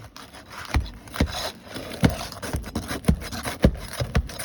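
A heavy-duty nail bar scraping and knocking as it is forced under sealed asphalt shingles to pry them up, with about eight sharp knocks at irregular intervals. The shingles are stuck fast and hard to lift.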